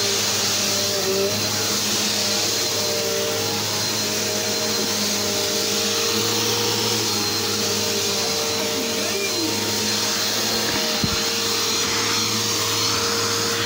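Vacuum cleaner running steadily, a constant motor hum over a rushing noise.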